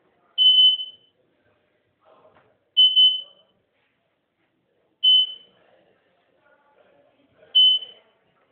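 Electronic beeper sounding a single high beep about half a second long, repeating about every two and a half seconds, four times.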